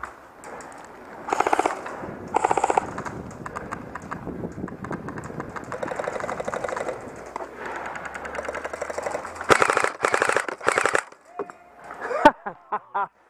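Airsoft guns firing on full auto: rapid rattling bursts, the loudest about a second in, two and a half seconds in, and again around ten seconds in, with lighter fire between them.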